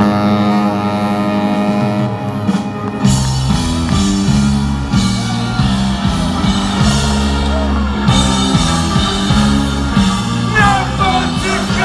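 Ska band and orchestra playing live: held chords, then the full band comes in with bass and drums about three seconds in, and a voice shouting or singing over it near the end.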